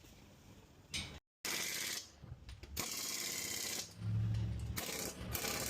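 Pneumatic impact wrench in a brake job, hammering in several short bursts of about a second each, with a lower hum under the later bursts. Before them comes a quiet first second and a brief moment of total silence.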